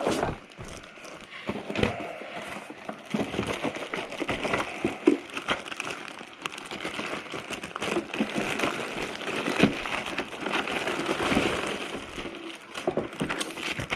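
Packaging crinkling and rustling, with irregular small clicks and knocks, as a boxed robot vacuum is unpacked by hand.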